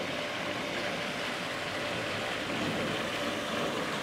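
Steady splashing of water from a pool's sheer-descent water feature pouring into the pool.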